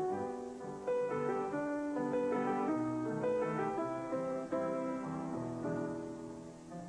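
Piano music: a melody of short notes over chords, easing off in level near the end.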